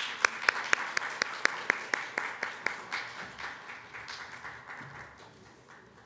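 A small audience applauding, with distinct, evenly paced claps at about four a second that fade steadily and die out near the end.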